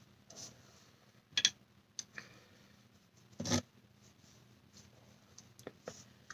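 Quiet makeup handling: a few short taps, clicks and brushing sounds from a blush brush and compact, with two louder taps about a second and a half in and again two seconds later.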